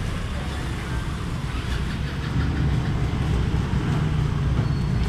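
Steady low engine rumble, like a vehicle idling, growing a little louder about two seconds in.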